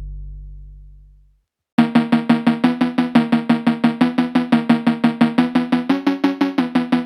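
Background music: a low note fades away, a moment of silence, then about two seconds in a new track starts with a fast, even pulse of short repeated notes, about six a second.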